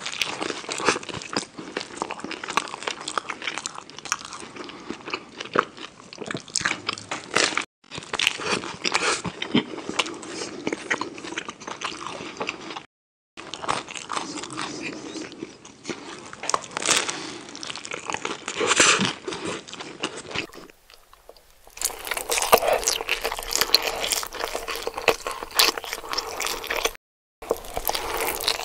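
Close-miked mukbang eating sounds: loud crunchy bites and chewing of a crusty cheese-topped baguette pizza. They come in cut-together stretches with brief silent gaps between them, then more biting and chewing in a brighter-sounding clip near the end.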